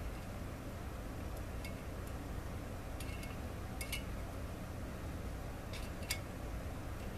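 Loose needle bearings being picked up one at a time on a slightly magnetic flat screwdriver and set into a greased bearing bore, giving a few faint clicks a second or so apart over a steady low hum.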